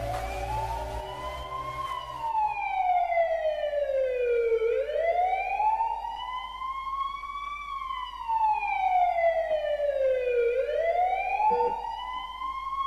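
Emergency-vehicle siren in a slow wail, its pitch rising and falling smoothly about every six seconds, heard through three swells.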